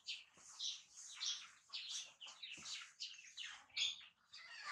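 Small birds chirping in a fast, irregular run of short, high-pitched chirps, several a second.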